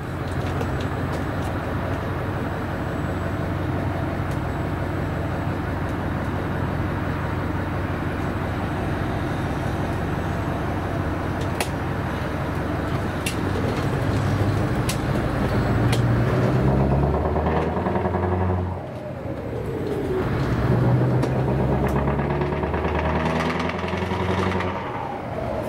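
Scania 4-series V8 diesel truck engine heard from inside the cab, very loud: running steadily at first, then pulling harder from about fifteen seconds in, with the revs dropping for a gear change at about nineteen seconds and again near the end.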